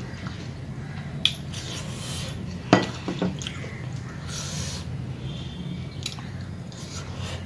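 Eating by hand from ceramic plates: crockery clinks as dishes touch, the loudest about two and a half seconds in with a few lighter ones right after, between the soft sounds of fingers mixing rice and curry and of chewing.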